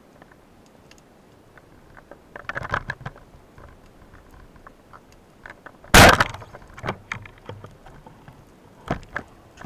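Speargun fired underwater: one sharp crack about six seconds in with a short trailing ring, then a few fainter clicks of the shaft and line. Earlier, scattered soft clicks and crackles.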